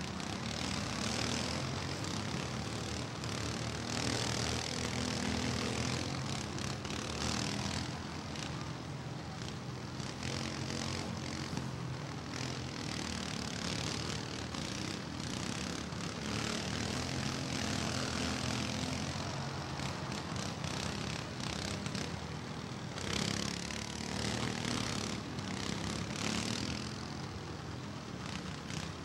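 Several riding lawn mower engines running together, a steady drone that rises and falls in pitch as the mowers rev and drive.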